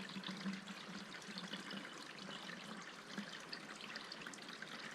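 Filtered water trickling faintly from a Sawyer squeeze filter into a bottle held just below the nozzle.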